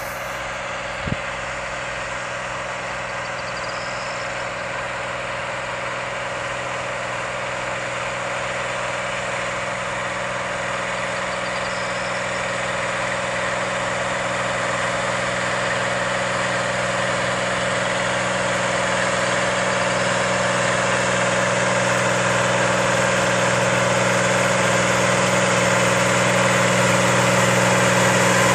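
Tractor's diesel engine running steadily under load while pulling a seedbed cultivator, getting gradually louder as it approaches.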